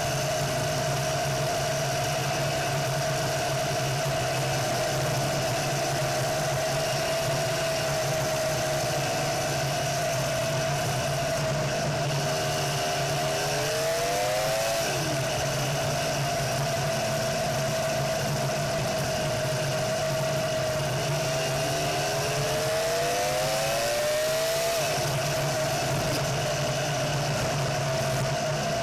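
Off-road buggy's engine running steadily as it drives along a dirt road, revving up twice, around the middle and again near the end, and each time dropping back sharply.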